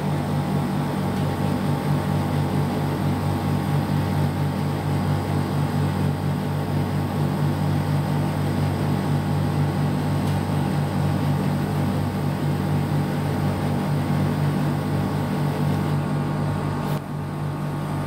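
Split air conditioner's compressor running in heat mode with a steady low hum, its fan cut out because the high-side refrigerant pressure has risen too far. A single click near the end.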